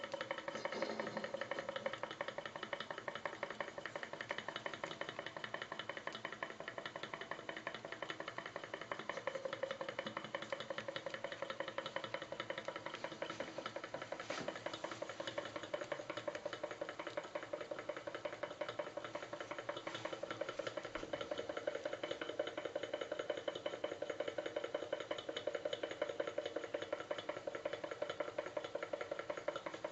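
Model hot air engine running under its burner flame, its moving parts giving a fast, even clatter with a steady tone underneath.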